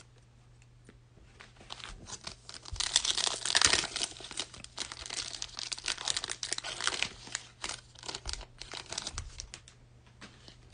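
Foil wrapper of a 2019-20 NBA Hoops Premium Stock trading-card pack being torn open and crinkled. The crackling starts about two seconds in, is loudest around three to four seconds, and thins out near the end.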